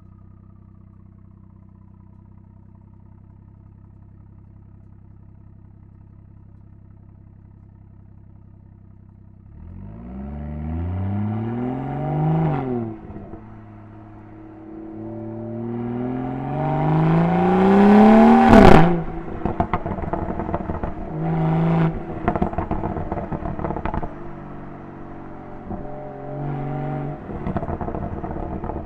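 BMW 340i's B58 turbocharged straight-six with an M Performance exhaust, idling steadily for about nine seconds, then pulling away hard with its pitch rising through two gears. A sharp crack comes at the second upshift, and the exhaust pops and crackles as the revs drop off afterwards.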